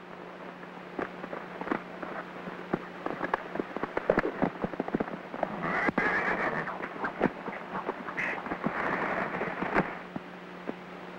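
Horse's hooves clattering and scrambling on rocky ground in a run of irregular knocks, with two longer rushing noises about six and nine seconds in. A steady low hum from the old film soundtrack lies under it.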